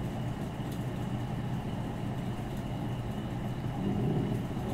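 A steady low rumbling hum with no distinct knocks or clicks.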